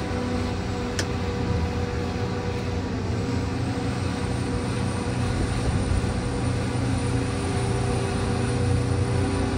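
Sennebogen material handler's diesel engine and hydraulics running steadily under load as the grab handles scrap, heard from inside the operator's cab. A light click about a second in.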